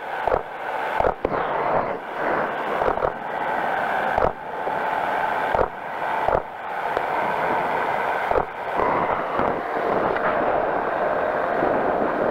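Steady engine and wind noise of a powered parachute in flight, broken in the first several seconds by a string of brief dropouts and thumps.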